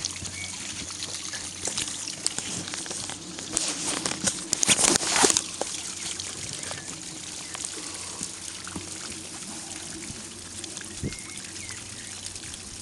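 Water trickling and splashing at the water's edge as a landing net is worked in the water, with a louder burst of noise about four to five seconds in.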